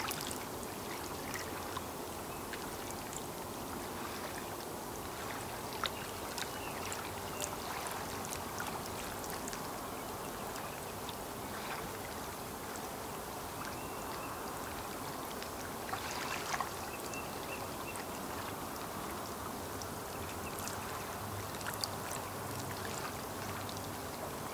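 Lake water lapping at the shore: a steady wash with scattered small splashes and clicks.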